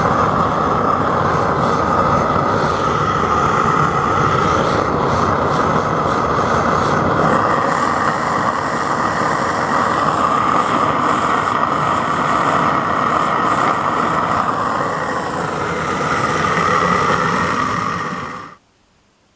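Propane forge burner fed with compressed air, running with a steady rushing noise, then shut off suddenly near the end.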